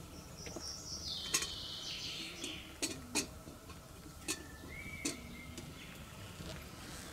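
Hot liquid poured from a small kettle into a cup, a hissing splash that steps down in pitch over about two seconds. It is followed by several sharp clinks and knocks as metal cookware is handled and set down at a campfire.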